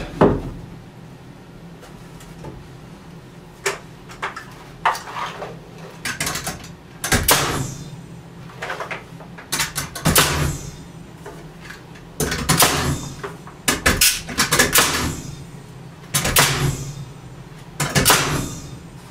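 Pneumatic nail gun driving nails into wood framing blocks and shims: a dozen or so sharp shots at irregular intervals, some in quick pairs.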